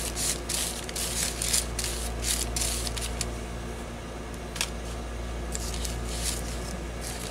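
A paint applicator scrubbing and dabbing acrylic paint over waxed deli paper, a quick run of short scratchy swishes over the first few seconds. After that come a few single clicks and light handling noises.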